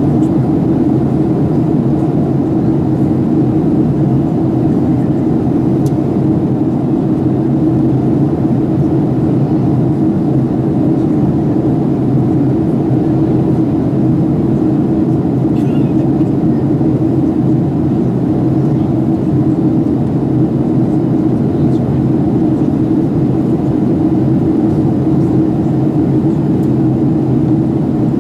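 Steady drone of engines and rushing air inside the passenger cabin of a Boeing 737-800 in flight, heard from a window seat by the wing, with a low, even hum.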